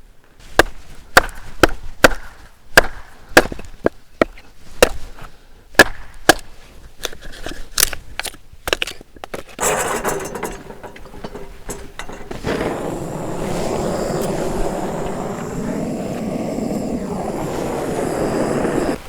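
Firewood being broken up for a fire pit: a run of sharp wooden cracks and knocks, about two a second, through the first half. After that comes a steady rushing noise that cuts off suddenly at the end.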